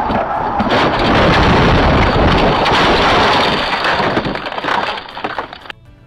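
Car crash recorded from inside the cabin: a loud, sustained crashing noise with cracking and breaking, easing off after about four seconds and cutting off suddenly near the end.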